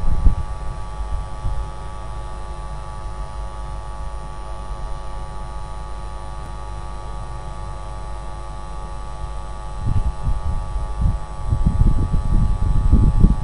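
Steady electrical hum from the nest-box camera's microphone. Low, irregular rumbling noise is heard in the first moment and returns about ten seconds in.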